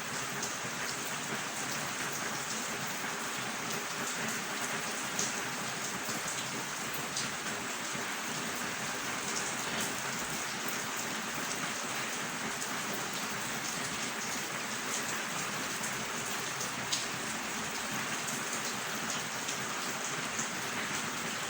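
Steady rain falling, with scattered sharper drop hits standing out.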